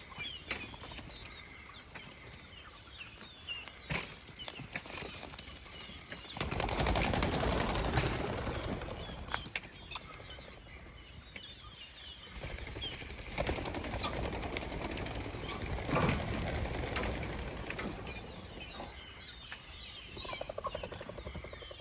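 Young pheasant poults flapping their wings in two spells of a few seconds each as they are let go, with many short high chirps throughout.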